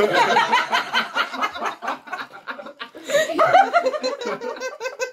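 A group of people laughing, with a louder burst of laughter about three seconds in.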